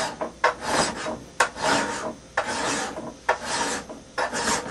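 Hand file pushed across the steel bevel of a hand axe head, rasping in repeated push strokes, about one a second, each starting sharply and trailing off. The file is shaving down the front bevel to sharpen the edge.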